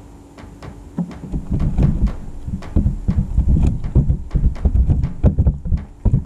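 A cat licking the camera right at the microphone: quick wet tongue strokes and rubbing, several a second, turning loud about a second in.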